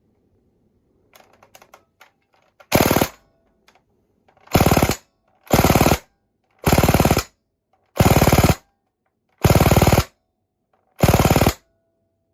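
Toytec P90 gas airsoft gun firing seven short full-auto bursts about a second apart, after a few light handling clicks.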